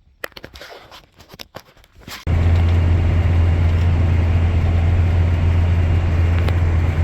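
Farmall 450 tractor engine running steadily, coming in suddenly about two seconds in after a few clicks and knocks.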